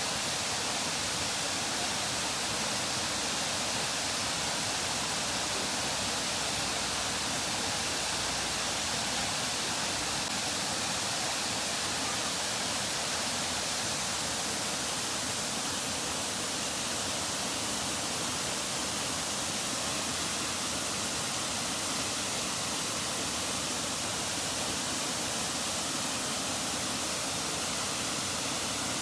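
Steady, even rush of a large waterfall's falling water.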